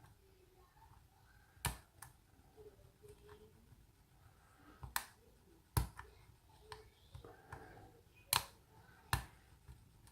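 Small metallic clicks of a hook pick and tension bar working the pins of a cylinder lock, a custom challenge lock with spool and serrated security pins. About eight sharp, separate clicks come at irregular intervals of roughly a second.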